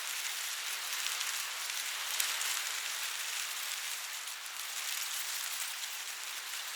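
Wind through a cornfield: corn leaves rustling in a steady, dry, high hiss with many small faint ticks.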